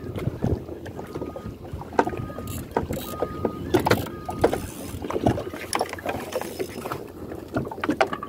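Choppy water slapping and lapping against the hull of a small wooden outrigger fishing boat, with many irregular knocks and splashes.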